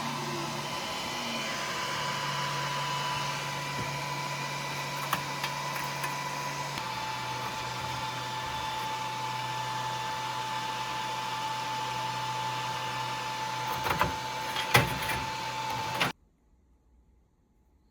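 A small machine's motor and fan running steadily, with a high whine and a low hum. The pitch drops slightly about seven seconds in, a few sharp clicks come near the end, and then it cuts off suddenly.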